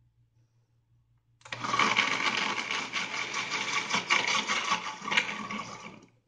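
Countertop blender with a glass jar switching on about a second and a half in and running steadily as it purées soft dates with milk and cream, then cutting off just before the end.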